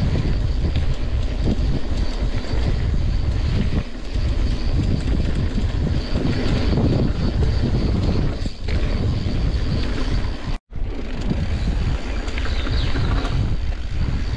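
Wind rushing over the microphone and the steady low rumble of a cross-country mountain bike rolling fast down a dirt trail. The sound cuts out for an instant about ten seconds in, then carries on the same.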